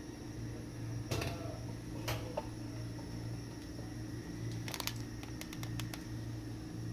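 A roti being roasted over an open gas-burner flame on a metal spatula: sharp clicks and taps about one and two seconds in, then a quick run of about eight clicks a little past the middle, over a steady low hum.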